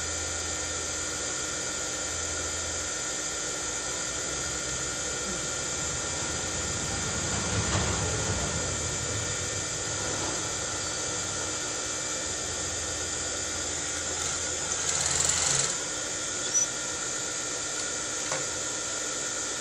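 Steady whining hum of an industrial sewing machine's motor running idle. Cloth rustles as the gathered fabric is handled, around the middle and again later, with a short sharp click near the end.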